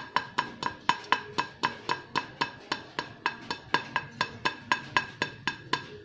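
Reheated samosa knocked repeatedly against a plate, about five sharp, even taps a second, each with a short ring from the plate. The hard clicks are meant to show the pastry crust has turned fully crisp after grilling.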